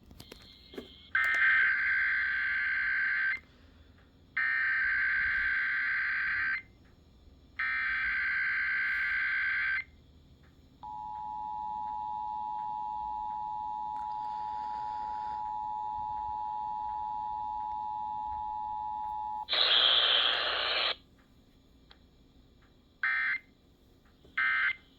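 Emergency Alert System data bursts and alert tone on a broadcast station: three screeching digital SAME header bursts about a second apart, then the steady two-tone attention signal for about nine seconds. After a short loud burst of noise come two brief end-of-message bursts near the end.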